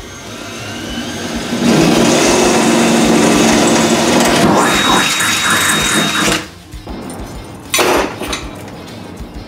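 Cordless drill boring into a car's sheet-steel floor pan. It spins up with a rising whine, runs loud for about five seconds and stops, then gives one short burst near the end.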